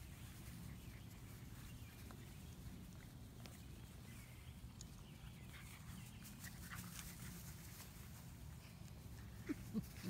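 Labrador puppies playing on grass: faint scuffling and small rustles over a low steady rumble, with two brief, louder sounds near the end.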